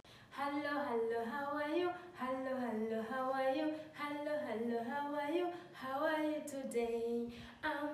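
A woman singing a simple tune unaccompanied, in short phrases with brief pauses between them.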